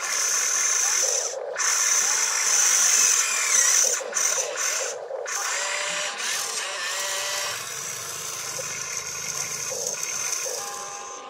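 Radio-controlled excavator's electric motors whining as the boom, arm and bucket move and the upper body swings. The pitch rises and falls with each movement, with a few brief breaks.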